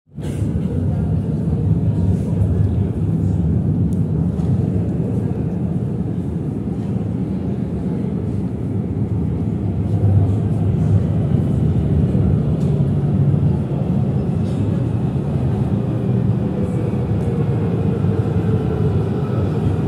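Steady low rumble of a tram approaching through the tunnel into an underground station, with a faint rising whine coming in near the end.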